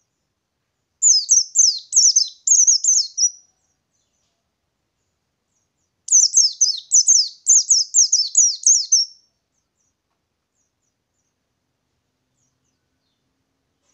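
A white-eye (pleci) singing its rolling 'ngerol' song: two bouts of quick, high, down-slurred notes, each about three seconds long, the second starting about five seconds after the first.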